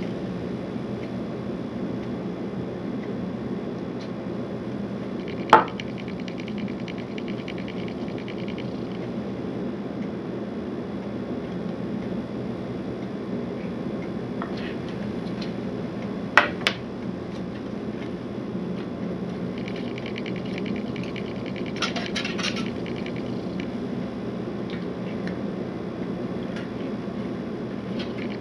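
Handling sounds of hot-waxing a cross-country ski: a glide-wax bar rubbed against a waxing iron and the iron sliding over the ski base, heard as soft scraping over a steady low hum. One sharp click about five seconds in and a quick pair of clicks about sixteen seconds in.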